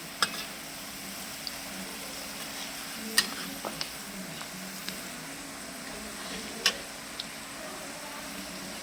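Steady sizzling hiss of food frying in a pan, with a faint low hum and three sharp clicks or knocks of utensils spread through it.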